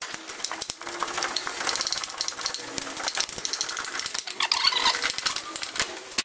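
Socket ratchet clicking rapidly in quick runs as it spins down the nuts on top of the front shock's top mount.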